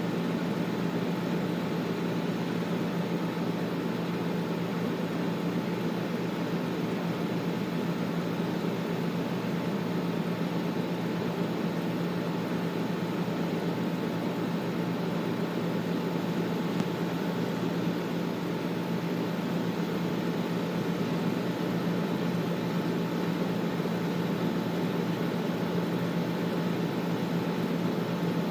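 Air conditioner running steadily: an even rush of air over a constant low hum, with no change throughout.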